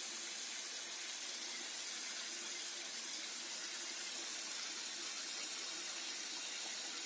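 Water running steadily into a bathtub as a dog is bathed.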